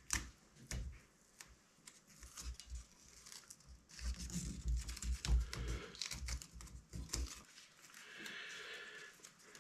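Masking tape being peeled off the roll and wrapped by hand around a rod on a rotisserie spindle: quiet crackling and tearing in short stretches with light clicks, busiest in the middle, then a smoother pull near the end.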